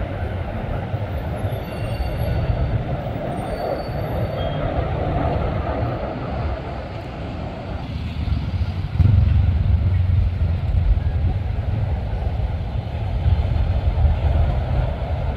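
Steady rumble of road traffic, growing louder about nine seconds in.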